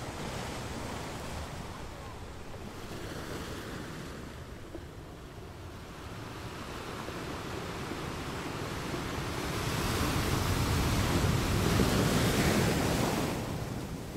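A rushing noise with no tone in it, low and even at first, swelling to its loudest about three-quarters of the way in and fading again near the end, like surf washing in.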